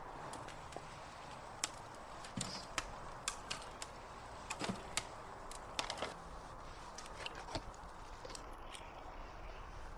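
Scattered clicks and knocks of outdoor cooking work: a knife cutting meat on a wooden board and split firewood being fed into a burning stove's firebox, over a steady background hiss.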